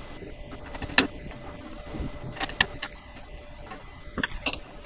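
Bolts being tightened by hand into the wooden top trim of a changing-table frame: a few sharp clicks and knocks of the tool and hardware against the wood, the loudest about a second in, two close together about halfway through and two more near the end.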